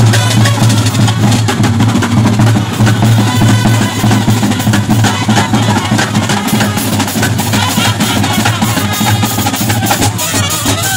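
Brass band playing loud, with bass drum and snare drums beating fast and brass horns holding a steady low note underneath.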